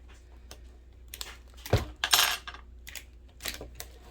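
Small metal parts and tools clinking and clattering while a vintage Talk-A-Phone intercom is taken apart, with a heavier knock about a second and three quarters in and a short rattle just after.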